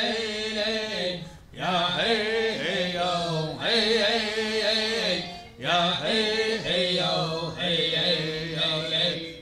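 A chant-like song sung on vocables, in phrases of about two seconds with short breaks between them.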